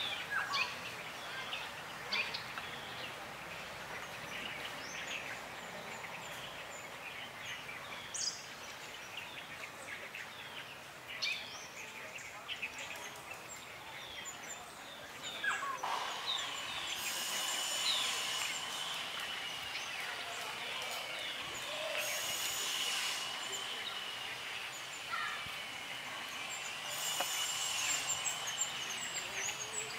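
Outdoor ambience of birds chirping in short, scattered calls. From about halfway a steady high buzz sets in, swelling into a louder hiss three times, about five seconds apart.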